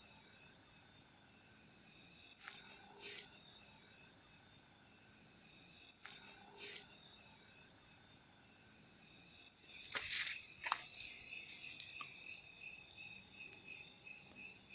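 Night crickets and other insects chirring steadily in high-pitched layers, with a faint short call every few seconds and a few soft clicks and rustles about ten seconds in.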